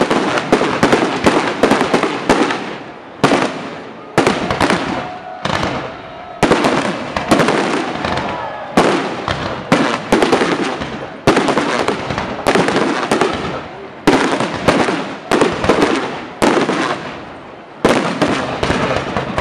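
Aerial fireworks shells bursting in quick volleys, each a cluster of sharp bangs with crackle that fades before the next volley, about every second or so.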